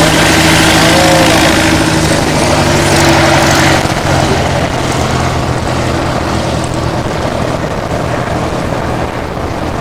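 An engine runs steadily under a loud rushing noise. The rushing noise eases off about four seconds in and keeps fading toward the end.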